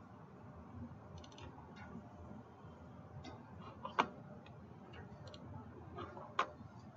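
Computer mouse clicking: a few faint clicks, then two sharper single clicks about four seconds in and near the end, over low room noise.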